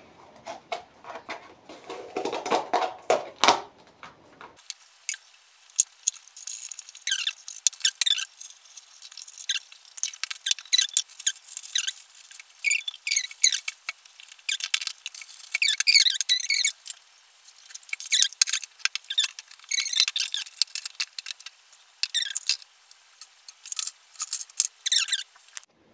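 Plastic bag of cotton swabs being handled and unpacked: crinkling and squeaking in quick, irregular spells, with a few light knocks in the first few seconds.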